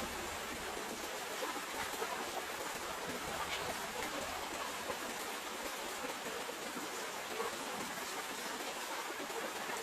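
Steady rain falling, an even hiss of drops with faint scattered patters on surfaces.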